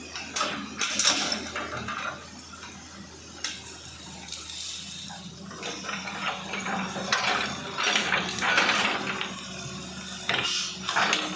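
Hitachi hydraulic excavator's diesel engine running steadily, with irregular cracking, crunching and scraping as it works through soil and vegetation, loudest about a second in and again from about seven to nine seconds.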